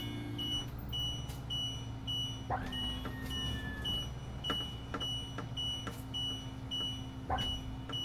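Power Gear hydraulic leveling system's jacks-down warning beeping, a short high beep about twice a second, signalling that the jacks are extended and the motorhome must not be driven off. Underneath runs a steady low hum, with a few knocks and a creak as the jacks level the coach.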